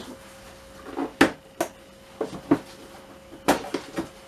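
Irregular sharp knocks and clacks from parts and tools being handled while a 50cc scooter is taken apart, about seven in all, the loudest about a second in and again past the middle. A faint steady hum runs underneath.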